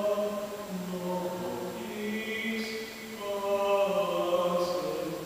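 A man's voice singing slow, long-held notes unaccompanied, ringing in a large vaulted barrel room.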